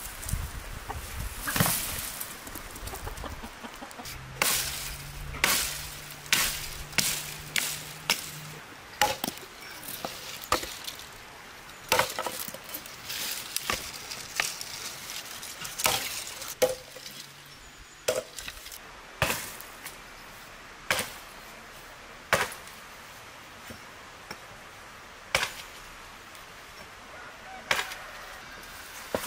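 A hatchet chops thin tree branches on a wooden chopping stump: about twenty sharp blows, a second or so apart at first and more spread out toward the end. At the start a branch is dragged over the ground, and chickens cluck in the background.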